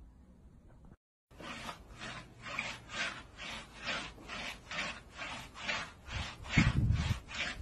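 Hand scrubbing a wet, soapy dog's fur in a tub: rhythmic rubbing strokes, about three a second. Near the end a louder low sound joins in.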